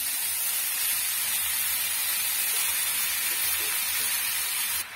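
Onions, peas and green chillies sizzling in hot oil in a kadhai as boiled noodles are tossed in: a steady frying hiss that drops sharply just before the end.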